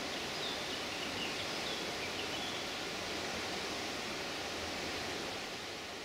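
Steady rushing of a nearby mountain river, with a few faint high bird chirps in the first half; the sound begins to fade near the end.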